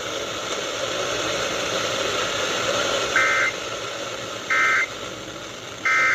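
Steady radio static hiss, then three short, buzzy two-tone data bursts about 1.4 s apart, starting about 3 s in. These are the EAS/SAME end-of-message tones that close the weather radio warning broadcast.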